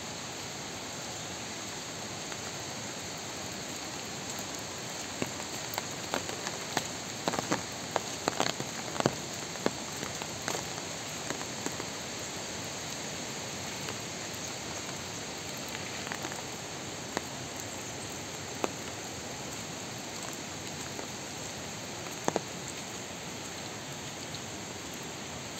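Steady hiss of rain falling on forest foliage and a wet road, with sharp single drop taps standing out, many of them between about five and eleven seconds in and a few more later.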